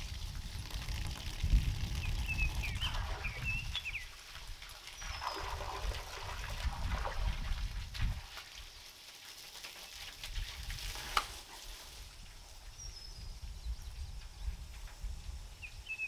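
Water running and splashing from a still-live water pipe whose supply was never shut off, over an uneven low rumble. A small bird chirps a few times about three seconds in and again at the very end, and there is one sharp click about eleven seconds in.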